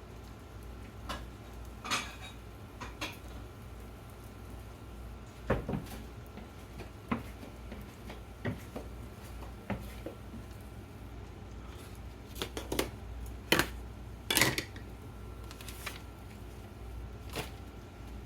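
Scattered clinks and knocks of kitchenware, utensils and dishes handled against a pan and plate, about a dozen in all. The loudest come as a pair about three-quarters of the way through, over a steady low hum.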